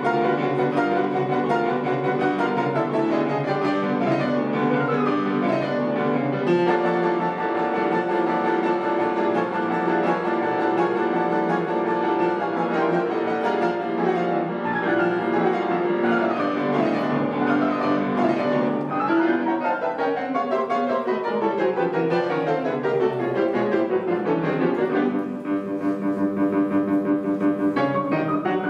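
Piano duo playing a fast classical piece with dense chords. About two-thirds of the way through come long falling runs, then fast repeated chords.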